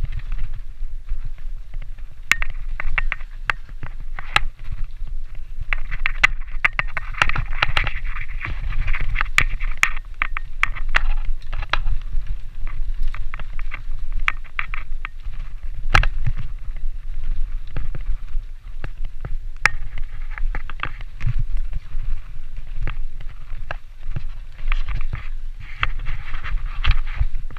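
Mountain bike ridden fast down a forest trail: tyres crunching over dry leaves and stones, with frequent sharp knocks and rattles as the bike hits rocks and roots, and a steady wind rumble on the microphone.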